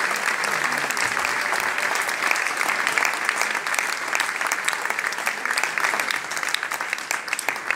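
Concert audience applauding, a dense steady clapping that thins out near the end.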